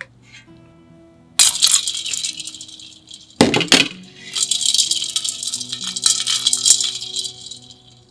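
Blanched fugu milt dropped into a stainless steel bowl of ice water with a splash, twice, then a hand stirring the ice water for a few seconds, with ice rattling and clinking. Soft background music runs underneath.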